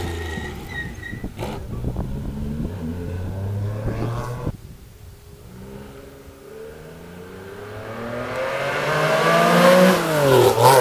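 Rally car engine running steadily and fading as the car pulls away, cut off abruptly about four seconds in. Another rally car then approaches, its engine rising in pitch and growing louder, and passes close near the end with a sharp drop in pitch.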